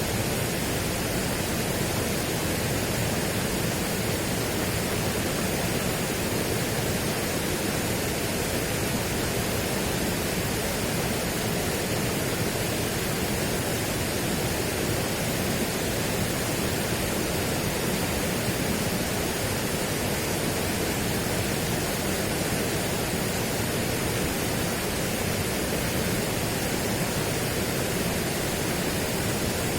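A steady, even rushing noise like pink noise, with no changes or separate events.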